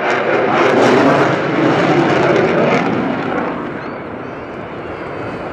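Loud rushing jet noise from a Belgian F-16's Pratt & Whitney F100 turbofan as the jet flies a display pass. It is loudest over the first three seconds and then fades.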